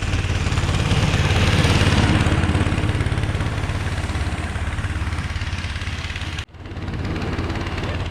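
Engine of a motosobaka, a small tracked motorized snow tug, running steadily with a fast even pulse. It cuts off abruptly about six and a half seconds in and is heard running again straight after.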